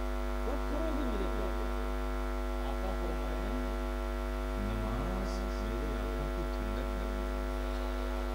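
Steady electrical mains hum from a PA sound system: a constant low buzz with many overtones, with faint voices wavering underneath.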